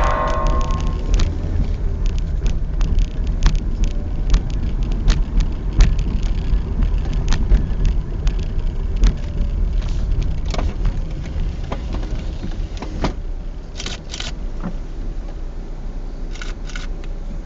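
Car driving on a worn, uneven road, heard from inside the cabin: a steady low rumble with frequent small knocks and rattles, fading gradually.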